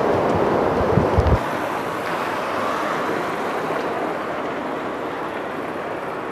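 Street ambience: a steady hiss of road traffic, with wind buffeting the microphone as low rumbles for about the first second and a half.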